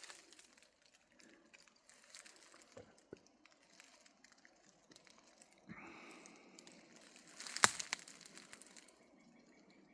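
Faint rustling and crunching of footsteps through dry grass and brush. A sharp click comes about three-quarters of the way through.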